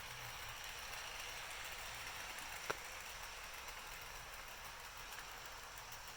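Bachmann Spectrum model diesel locomotive running on its track: a faint, steady whirring hiss, with one sharp click about three seconds in.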